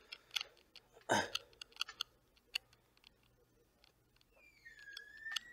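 Quiet room with scattered small clicks, a short throat sound about a second in, and a faint high-pitched tone with overtones starting near the end.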